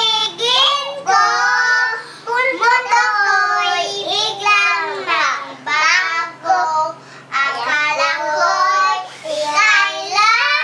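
Young girls singing in high voices, phrase after phrase with short breaks between.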